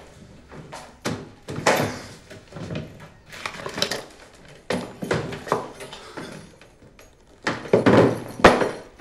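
A run of irregular thuds, knocks and scuffling noises, about a dozen sharp hits, with the loudest cluster near the end.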